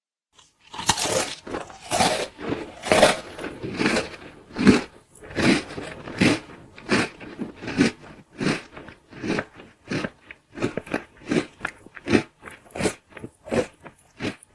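A person munching food, noisy chewing in an even rhythm of about one and a half chews a second, starting about a second in after a short silence.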